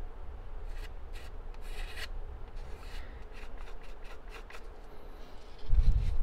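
Wooden stir stick scraping and smearing glazing putty into a seam on balsa wood, in short soft rubbing strokes. A dull low thump comes near the end.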